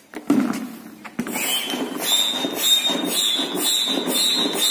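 Single-action bellows foot pump being worked steadily, pushing air through its corrugated hose into the kayak's tube at about two strokes a second, with a thin steady whistle of air at the valve. The pumping starts a little over a second in, just after a click.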